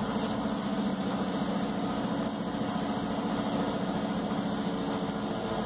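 Semi truck's diesel engine running steadily at low speed, heard from inside the cab as the truck rolls slowly forward.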